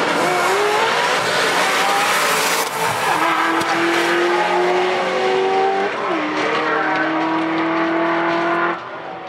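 Drag-racing cars launching at full throttle down the strip, the engines screaming and rising in pitch with tire noise, then holding a steady high note that dips about six seconds in. The sound drops off abruptly near the end.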